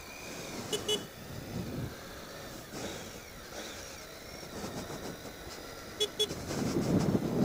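Triumph Tiger 800 XCx's three-cylinder engine running as the bike rolls at low speed, its rumble swelling near the end. A horn gives a quick double toot about a second in and again about six seconds in.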